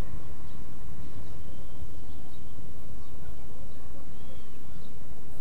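Outdoor ambience: a steady low rumble with a few faint, short, high bird chirps scattered through it.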